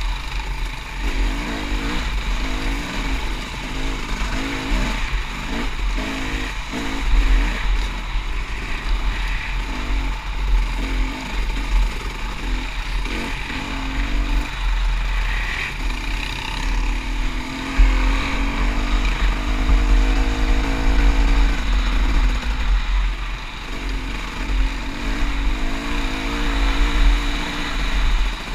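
Dirt bike engine running and revving up and down over and over as it rides a sandy trail, with heavy wind buffeting on the microphone.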